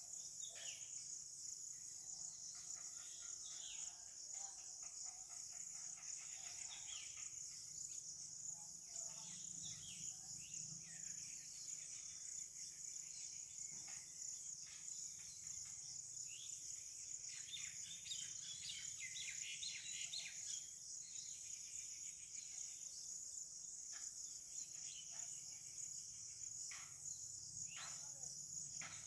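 Rural morning ambience: a steady high-pitched insect drone, with scattered bird chirps and short calls over it, busiest in the middle.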